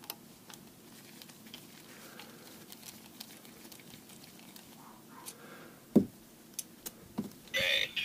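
Faint small metal clicks of a hex key and gloved hands working a set screw on a metal lightsaber hilt. A sharp knock about six seconds in, a few more clicks, then a short louder scraping rustle near the end as the hilt is handled.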